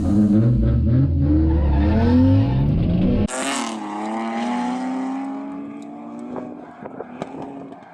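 BMW E46 328Ci's straight-six engine revving hard, its pitch climbing for about three seconds. The sound then changes abruptly to a thinner, higher engine note with a brief hiss, and the note fades away over the rest.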